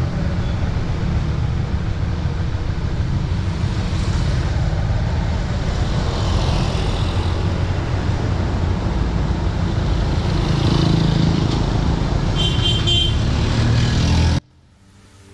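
Honda CB150R single-cylinder motorcycle running along a city road, with steady heavy low road and wind noise and passing traffic. A brief vehicle horn toot sounds about twelve and a half seconds in, and the riding sound cuts off abruptly about a second before the end.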